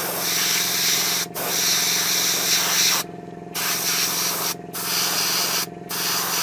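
Iwata airbrush hissing as it sprays paint in short passes, the air cutting off briefly four times as the trigger is released. A steady low hum runs underneath.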